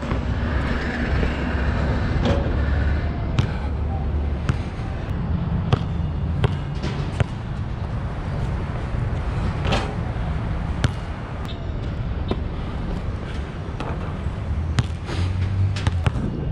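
Nike True Grip basketball bouncing on an outdoor court, with irregular sharp bounces and knocks spread through, over a steady low rumble of city traffic.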